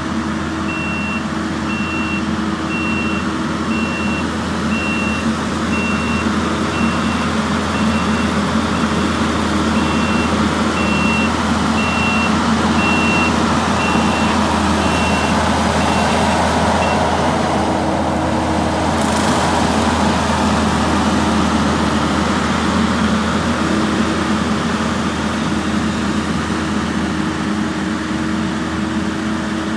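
Skid steer running steadily while mowing, with its reversing alarm beeping about once a second; the beeping stops a little past halfway.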